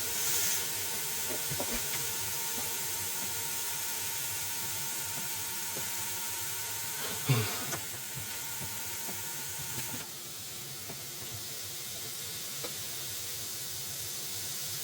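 Chicken strips cooking with a steady sizzling hiss, with one brief bump about seven seconds in. A faint steady tone under the hiss stops about ten seconds in, and the sound drops a little.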